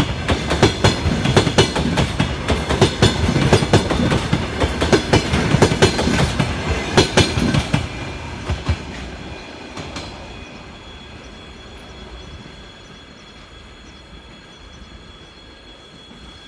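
Wheels of a departing passenger train clattering rapidly over rail joints, loud for about the first eight seconds, then fading away as the train moves off.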